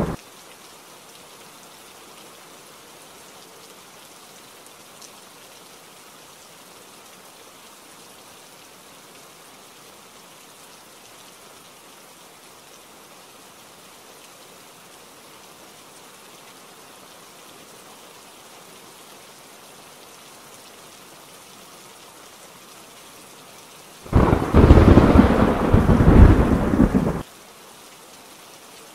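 Steady rain hiss, with one loud crash of thunder about 24 seconds in that lasts about three seconds and cuts off abruptly.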